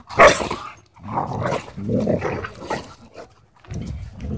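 A Cane Corso and a German Shepherd growling in short rough bursts as they wrestle, the loudest burst just after the start and a brief lull about three seconds in.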